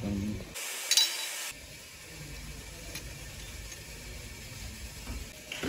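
Light clinks and a few ticks of small metal engine parts being handled and fitted into a bare engine block, over a low steady workshop hum; a click near the end.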